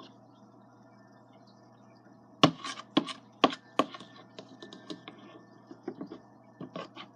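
A utensil clicking and tapping against a bowl while stirring clear glue and hand sanitizer together. The taps start about two and a half seconds in and come irregularly, several a second, until near the end.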